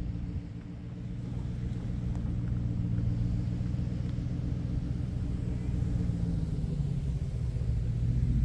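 GMC Sierra pickup truck's engine running steadily as the truck drives along a sand beach, a low even hum.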